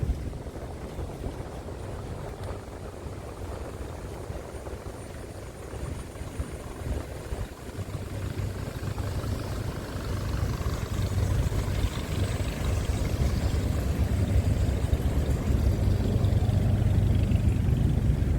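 Boat engine running with a steady low hum that grows louder over the second half.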